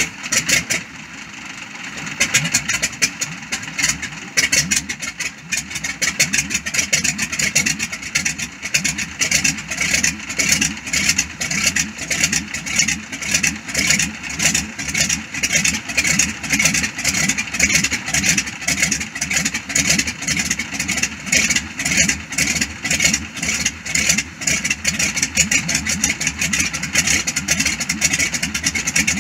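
Z-37A Čmelák's nine-cylinder Walter M-462 radial engine starting. It catches about two seconds in, then runs at idle with a rapid pulsing beat.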